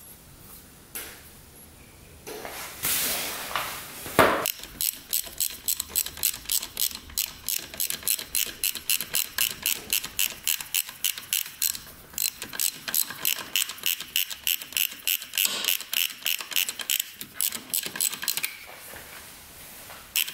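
Hand ratchet wrench clicking steadily, about five clicks a second, while a fastener is worked on the engine during reassembly. A sharp knock comes just before the clicking starts.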